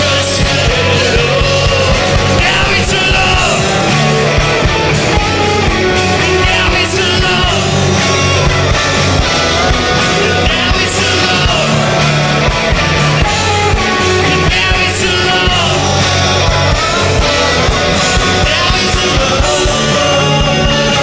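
Punk-rock band playing loud and live: drums, electric guitar and singing.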